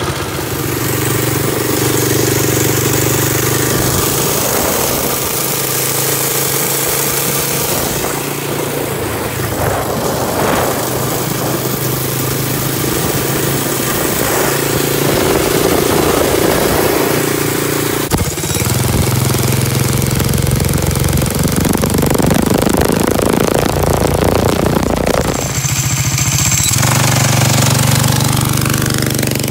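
Predator 212cc single-cylinder four-stroke engine with a stage 2 performance kit, running in a Chinese ATV: idling, then revved up and down as the quad is ridden, its pitch rising and falling with the throttle.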